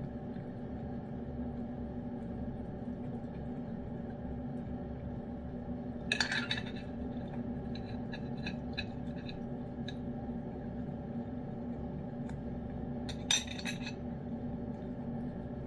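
Metal spoon clinking and scraping against the food bowl in two short bursts, about six seconds in and again about thirteen seconds in, with faint clicks of a cat licking food from the spoon between them. A steady low hum underlies it all.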